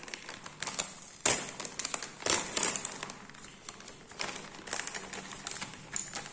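Clear plastic outer bag crinkling and rustling as it is cut open with scissors and the foil respirator pouch is slid out of it, with two sharp snaps about one and two seconds in.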